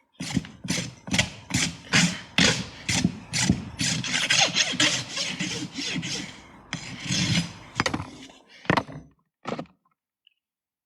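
Farrier's hoof rasp filing a horse's hoof in a steady run of strokes, about two or three a second. It ends with a couple of sharper strokes, then stops about nine and a half seconds in.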